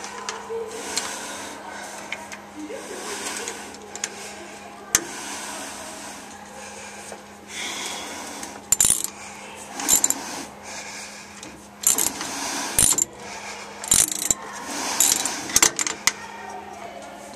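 Steel nuts being run down onto the flange bolts of a refrigeration filter-drier shell, first by hand and then with a ratchet wrench: scattered metallic clinks and clicks, coming more often in the second half, over a steady low hum.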